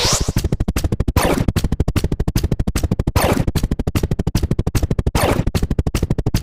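Rapid electronic ticking, about ten ticks a second, as a counter runs up in base five, with a sweeping sound effect about every two seconds.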